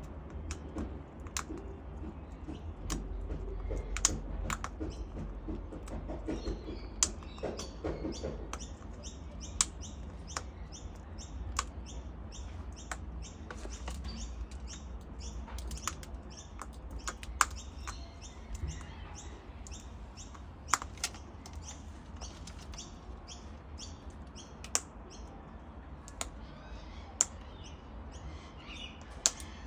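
A cockatoo eating, its beak crunching and cracking food in sharp, irregular clicks a second or two apart, with small birds chirping.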